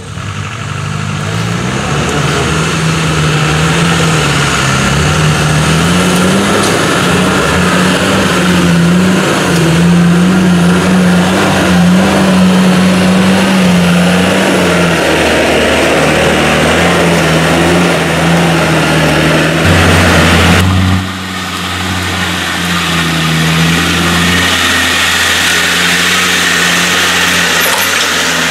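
Land Rover four-by-four's engine revving up and down as it crawls over rough off-road ground. The sound drops abruptly in level about three-quarters of the way through.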